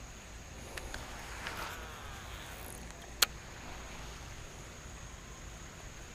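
Faint outdoor ambience with a steady high-pitched insect drone, broken by one sharp click about three seconds in.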